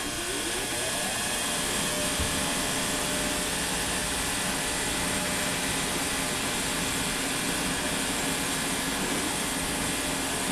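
Heated ultrasonic cleaner running with carburetor parts immersed: a steady, even hissing buzz of the tank's cavitation, with a few faint rising tones in the first second.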